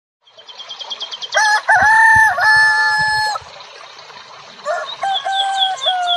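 A rooster crowing twice, each crow a long call held level. A small bird chirps quickly in a high run of short notes at the start and again under the second crow.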